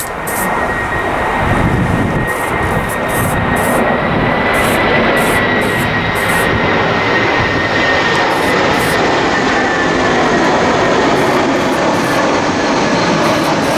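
Aerosol can of primer hissing in many short bursts over a loud, steady rushing noise with a faint high whine that drifts slightly up and back down in pitch.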